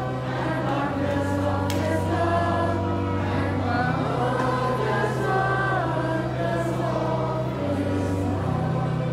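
Choir singing a Christmas carol over held low accompaniment notes that shift to a new chord every few seconds.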